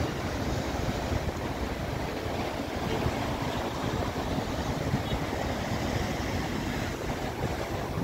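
Steady sea noise from choppy waves, with wind buffeting the microphone as a fluttering low rumble.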